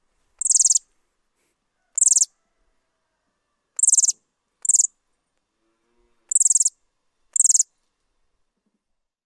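Hawfinch calling: six short, high-pitched calls at uneven intervals, two of them close together near the middle.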